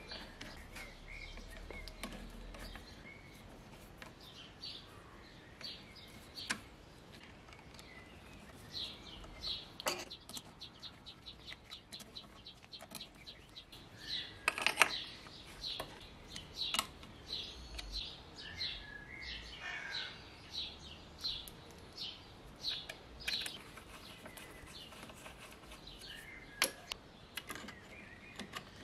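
Scattered small metal clicks and taps from aluminium parts and bolts being handled and fitted on a lathe cross slide, with short runs of quick ticking.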